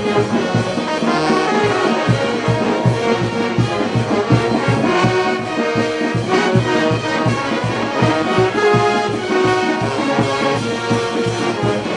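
Peruvian street brass band playing: trumpets and trombones carry the tune over tubas and a steady beat on the bass drums.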